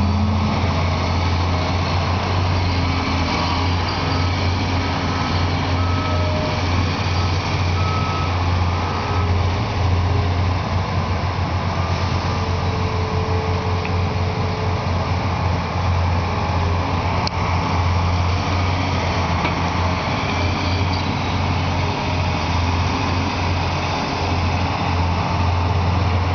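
Steady low drone of heavy diesel machinery: a Cat hydraulic excavator working as it loads a dump truck. A faint reversing beeper repeats in the first several seconds.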